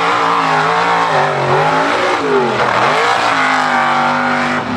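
Mud bog truck's engine revving hard under load. The pitch sags about two and a half seconds in, then climbs back up and holds high.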